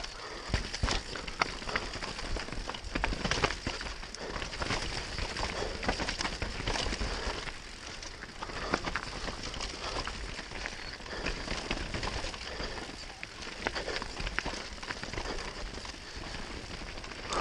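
Mountain bike running fast down a dirt trail: tyres hissing over loose soil and roots, with many quick knocks and rattles from the bike over the bumps.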